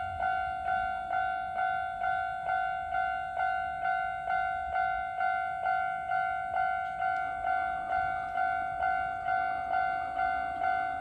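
Japanese railway level-crossing warning bell ringing over and over, about two strikes a second, each strike a clear tone that dies away. From about halfway through, the noise of a passing train runs under the bell.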